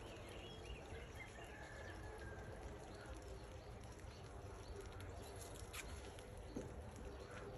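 Faint outdoor background noise: a low rumble with a light hiss and a few small clicks, and a faint thin whistled sound in the first couple of seconds.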